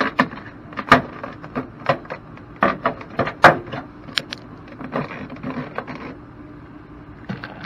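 Vinyl soffit panel clicking and knocking as it is pushed and worked by hand into its channel under the eave. The clicks are irregular and run through the first six seconds, with a couple more near the end, over a faint steady hum.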